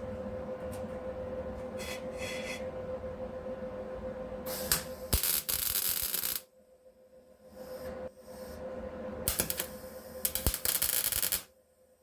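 Two bursts of MIG welding crackle, a couple of seconds each, while tacking in rust-repair metal. Each burst is cut off abruptly, over a steady hum.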